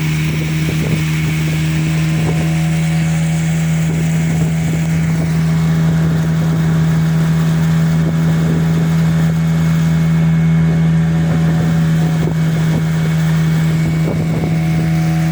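Motorboat engine running at a steady speed, a constant droning hum, with wind and water rush over it.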